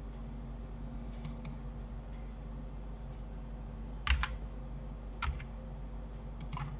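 Computer keyboard keys and mouse buttons clicking a few times, the loudest pair about four seconds in, over a faint steady electrical hum.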